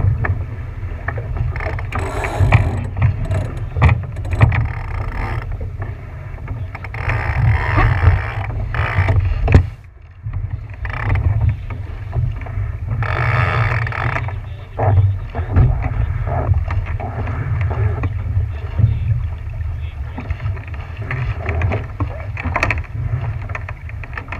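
Wind buffeting the microphone in gusts over the sound of a boat moving through water, with a heavy low rumble throughout.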